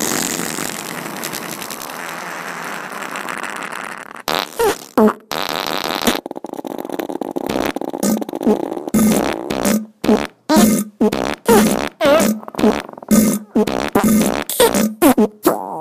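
A run of fart sounds: a long, drawn-out raspy one for about the first four seconds, then a quick string of short fart bursts, more than one a second, through the rest.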